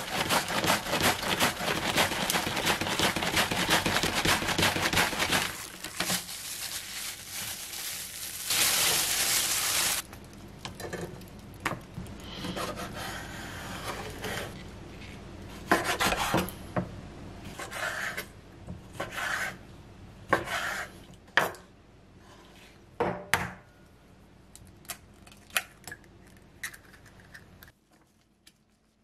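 Cabbage head rubbed back and forth over a mandoline slicer's blade, a loud, rapid rasping shred for the first several seconds. Later, quieter knife strokes tap on a wooden cutting board as squid is sliced.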